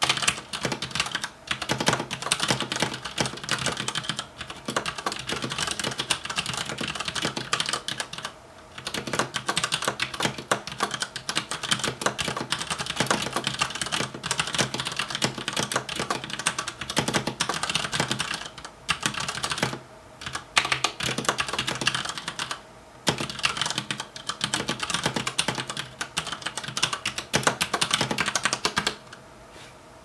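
Steady touch-typing on a Das Keyboard Professional S Silent mechanical keyboard with Cherry MX Brown switches, at a relaxed pace of about 60 words a minute: a dense run of key clacks with a few brief pauses. The typing stops about a second before the end.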